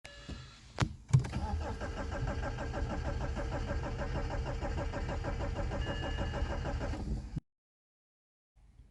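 BMW 320d's four-cylinder diesel engine starting about a second in, then idling with an even, pulsing diesel rhythm. The sound cuts off suddenly a little over seven seconds in.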